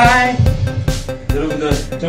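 Karaoke backing track of an upbeat dance song with a steady drum beat, about two beats a second; a pitched note slides down at the very start.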